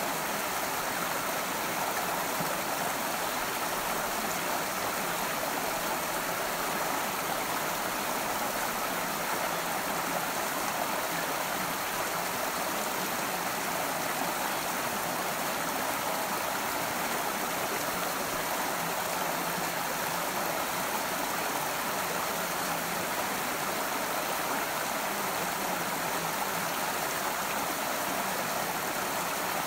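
A stream running steadily, a continuous even rush of flowing water with no change in level.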